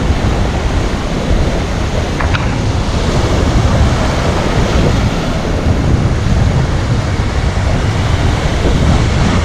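Heavy surf breaking and washing up on a sandy beach, a steady rush, with strong wind buffeting the microphone and adding a low rumble.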